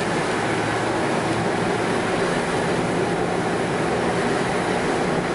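Steady drone of a truck driving on a wet road, heard from inside the cab: a low engine and drivetrain hum under a constant hiss of tyres on water.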